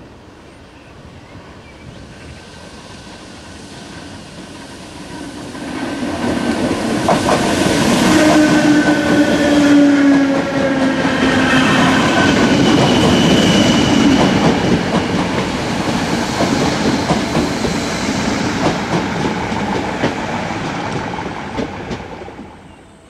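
8100-class DART electric multiple unit passing close by, its wheels clattering over the rail joints of jointed track. The sound builds about five seconds in and stays loud until it drops away near the end, with a whine that falls in pitch as the train goes by.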